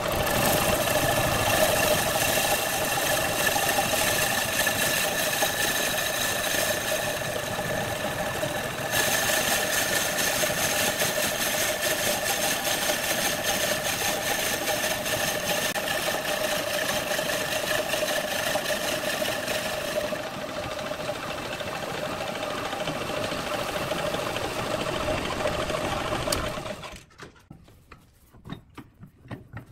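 Wood lathe running steadily while a long boring bar hollows the neck of a spinning redwood vase: a steady whine with a hiss of cutting. The sound cuts off suddenly near the end, leaving only faint ticks.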